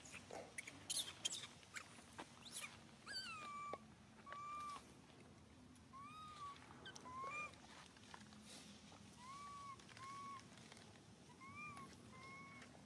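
Baby macaque crying: a series of about nine short, high, clear coos, each slightly arched in pitch, coming about once a second from about three seconds in. A few faint clicks and rustles come before the first cry.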